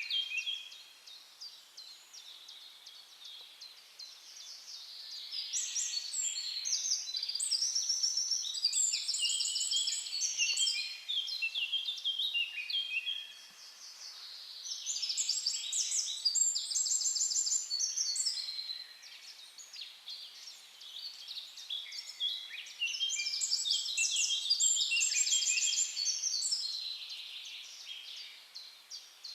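Songbirds singing in an outdoor chorus: several birds overlapping in rapid runs of high chirps and trills. The song comes in three louder spells, from about five seconds in, again at about fourteen seconds, and again at about twenty-two seconds, with quieter stretches of fainter calls between them.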